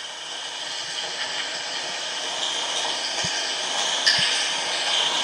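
A steady hiss of noise that swells slightly, with a few soft low thuds near the middle and end.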